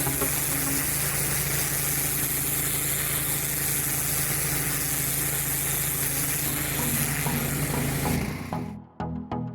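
Pressure washer engine running steadily under the hiss of high-pressure water spray. About eight seconds in it cuts off and music with plucked notes takes over.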